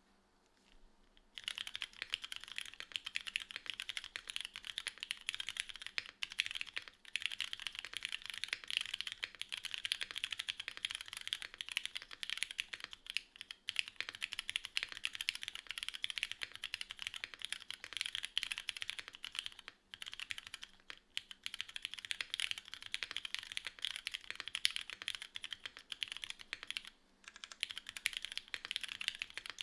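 Continuous typing on a Ramune 60 custom mechanical keyboard with Cherry Nixie + RGB Black switches, GMK keycaps, a PEI plate, tadpole mounting and no foam, fast and irregular with a few short pauses. The typing starts about a second and a half in.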